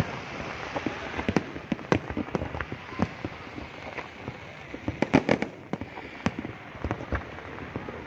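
Aerial fireworks exploding, irregular sharp bangs and pops over a steady crackling haze, with a rapid cluster of bangs about five seconds in.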